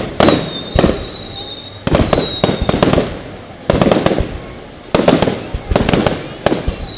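Aerial fireworks going off in a rapid volley of sharp, echoing bangs, several close together at times. High whistles slide down in pitch between the bursts.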